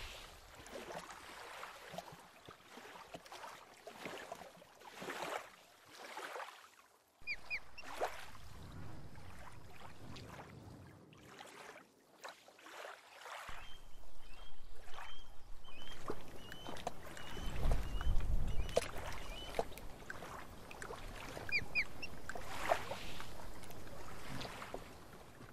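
Natural outdoor soundscape of waterfowl calling again and again, with a short run of high chirps partway through and a low rushing noise underneath.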